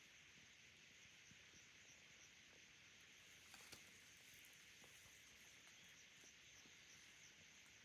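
Near silence: a faint steady hiss with scattered tiny clicks, one slightly louder about three and a half seconds in.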